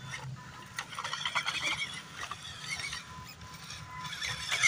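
Small-scale RC crawlers, an MN99S and a WPL C24, driving over dirt: their small electric motors and gearboxes whine and chatter, the pitch rising and falling with the throttle, with a louder burst near the end.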